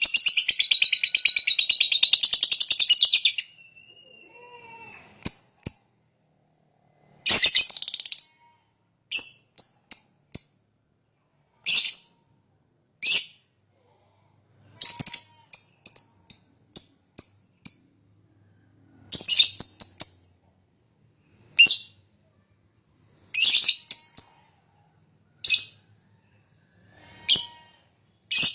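Green lovebird singing: a rapid, unbroken high-pitched chattering trill for about three seconds, then short bursts of high chirps with pauses between them.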